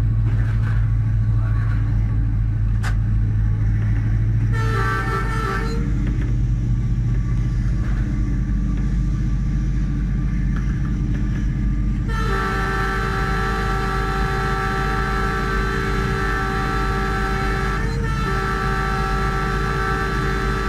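Diesel locomotive running at speed, heard from its cab, with a steady low drone of engine and wheels on the rails. Its multi-tone air horn sounds a short blast about four and a half seconds in, then a long blast from about twelve seconds in that breaks off briefly twice near the end.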